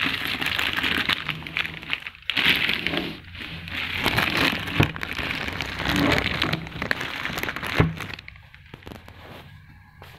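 Clear plastic protective bag crinkling and rustling as it is handled, a dense crackle that dies away about eight seconds in, with a couple of sharp knocks along the way.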